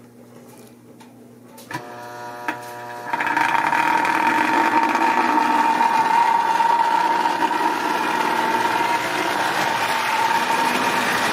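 Marx tinplate toy electric train, freshly repaired, running along the track past the listener: a steady high motor whine over the rattle of metal wheels on tinplate rails. It starts about three seconds in, after a low hum and a couple of clicks, and runs on steadily.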